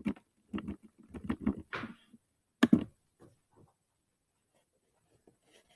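A scattering of short, soft knocks and clicks close to the microphone, about a dozen in the first three seconds, then near silence.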